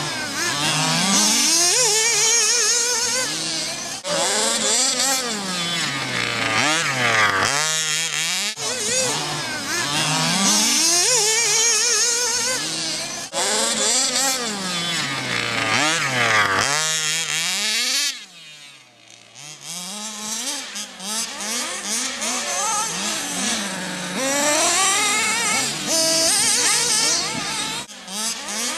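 1/8-scale radio-controlled off-road buggies racing, their motors whining up and down in pitch over and over as they accelerate and brake around the track, several at once. It goes briefly quieter about two-thirds of the way through.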